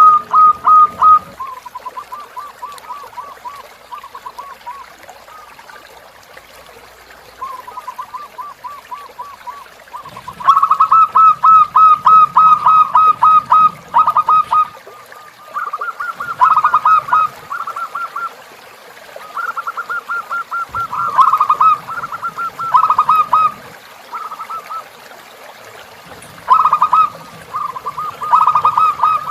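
Zebra doves (perkutut) calling in repeated runs of quick, short staccato coos, each run lasting a second to a few seconds. Some runs are loud and others much quieter.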